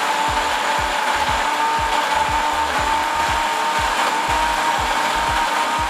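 Braun countertop blender running steadily, grinding sliced onions and green chillies with a little water into a paste; a loud, even motor whine throughout.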